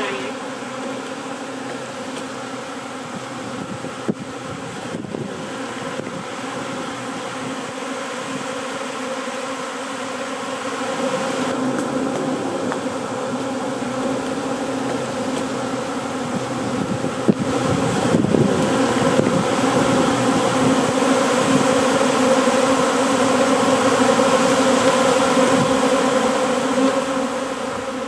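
Honeybee swarm buzzing: a steady, dense drone of many bees in flight. It grows louder about halfway through and eases off near the end.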